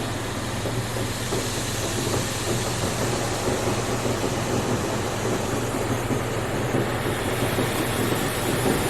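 NeXus Crossfire in-bay automatic car wash spraying water over the car, a steady dense spatter drumming on the body, heard from inside the car over a low steady hum.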